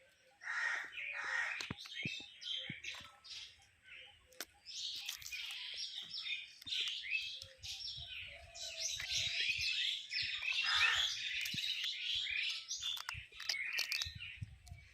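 Birds chirping, many short overlapping calls and quick sweeping notes, with a few faint sharp clicks scattered through.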